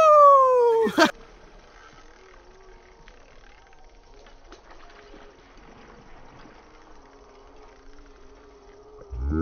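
A loud comedic sound effect: a whistle-like "whooo" that rises briefly, then slides down in pitch for about a second and ends in a sharp click. After it, faint outdoor background, and music starts near the end.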